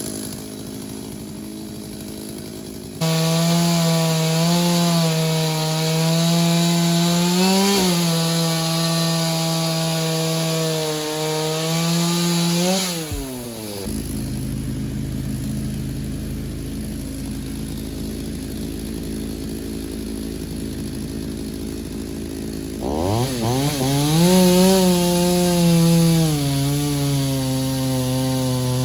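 Vintage two-stroke chainsaw cutting into a tree. About three seconds in it opens up to full throttle under load, revs higher and drops back around the middle, runs at a steadier lower pitch, then revs up sharply again near the end and settles back into the cut.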